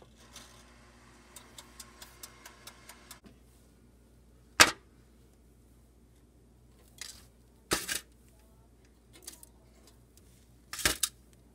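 A toaster oven's timer dial clicking quickly and evenly, about five clicks a second, for about three seconds as it is turned. Then several separate sharp clacks as taquitos are pulled off the oven's wire rack, the loudest about four and a half seconds in.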